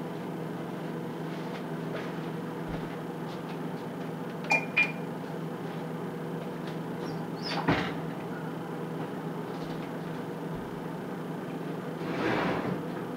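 Steady low hum in the kitchen, broken by two sharp clicks about halfway through and a single knock a little later; near the end comes the rattle and scrape of the oven door being pulled open.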